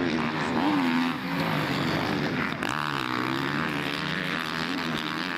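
Motocross dirt bike engines revving, their pitch rising and falling as the throttle opens and closes, with more than one bike heard at once.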